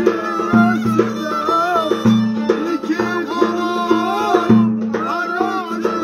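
Violin playing a lively Turkish folk tune, with a drum giving a low, booming beat every second or two beneath the melody.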